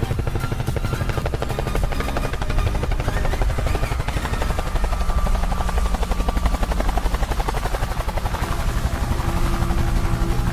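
Helicopter rotor sound effect: a steady, rapid chop of the blades over a low hum.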